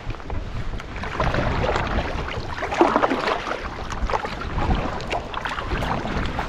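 Kayak paddle strokes splashing and water sloshing against the hull as the kayak moves across choppy water, with wind buffeting the microphone. The splashes come unevenly and are loudest a few seconds in.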